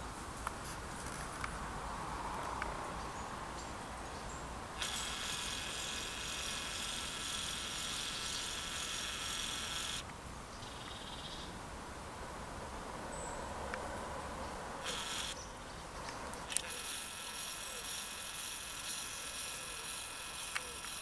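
Whine of a camcorder's zoom motor that switches on and off sharply: one run of about five seconds, a short blip, then another run of about four seconds near the end. It plays over faint outdoor background noise.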